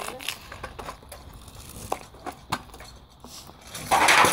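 Kick scooter clattering on asphalt: a few scattered knocks and clicks, then a loud scraping rush near the end.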